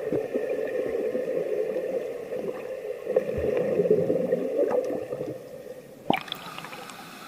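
Muffled water gurgling and sloshing that dies away about six seconds in, followed by a brief sharp splash and a faint steady hiss.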